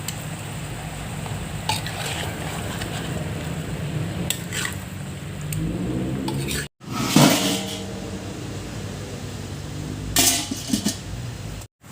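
Metal utensils clinking and scraping against a cooking pot, with a few separate strikes; the loudest comes a little past halfway.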